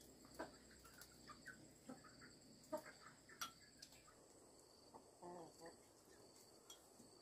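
Faint clucking and scattered short calls from a small flock of chickens foraging in a dirt yard, with a brief louder call about five seconds in, over a steady high-pitched whine.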